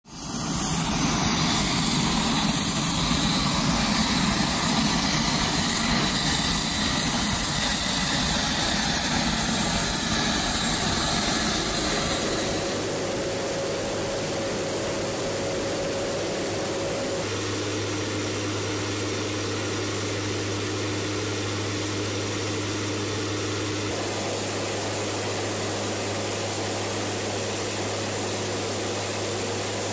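Steady drone of a WC-130J Hercules's four turboprop engines heard from inside the cabin. It fades in at the start, then drops a little and changes tone abruptly about 13 seconds in and again about 17 seconds in.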